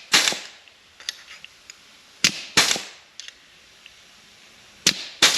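Astro Pneumatic 605ST air flange and punch tool punching holes in sheet steel, three times: each stroke is a pair of sharp snaps about a third of a second apart, the strokes roughly two and a half seconds apart.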